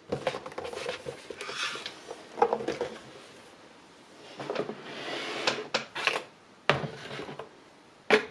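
Small cameras and their box being handled on a tabletop: scattered clicks and knocks with rubbing and scraping between them, quieter in the middle.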